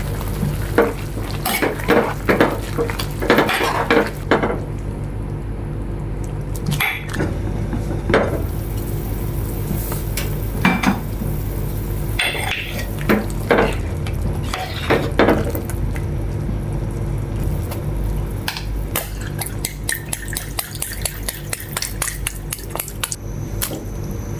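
Metal utensils clinking and scraping against pots and dishes in irregular strokes, over a steady low hum.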